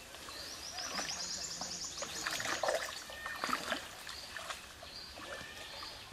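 Water splashing and sloshing as a fishing net is hauled by hand through shallow pond water, the loudest splashes about two and a half and three and a half seconds in. A bird calls in the background: a quick run of high notes rising in pitch about a second in, and short high chirps about once a second.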